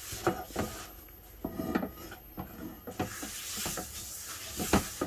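A cloth rubbing over a frying pan as it is wiped clean, with a few light knocks as the pan is handled.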